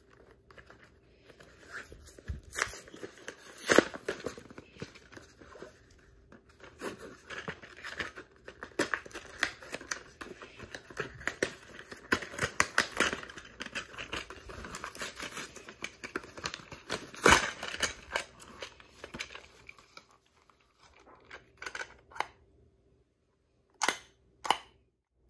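Hands tearing and crinkling packaging while unboxing: a dense run of rustles and sharp clicks that thins out to a few separate knocks near the end.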